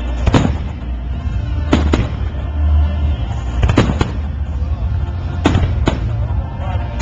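Aerial fireworks shells bursting overhead with sharp booms, about six in a row at one- to two-second intervals, two of them close together midway, over music playing underneath.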